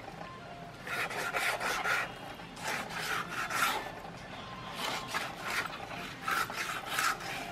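A large cleaver sawing back and forth through raw pork belly on a wooden chopping board, in four bursts of quick strokes about a second each.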